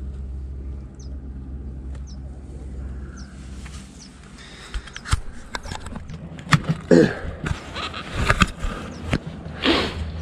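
A steady low rumble, then from about halfway a run of sharp knocks and thumps on a pontoon boat's deck as catfish flop in a landing net and are handled, with a couple of short voice sounds among them.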